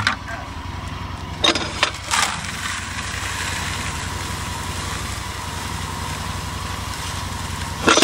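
An engine running steadily while ground chicken feed pours out of a metal chute into a plastic bucket with a steady hiss. A few sharp knocks in the first two seconds and another at the end.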